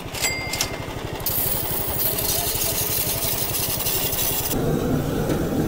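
Belt-driven knife-grinding wheel powered by a small engine that pulses steadily. A knife blade pressed to the spinning wheel gives a loud hissing scrape from about a second in until past four seconds. Near the end the scrape stops and a lower rushing noise takes over.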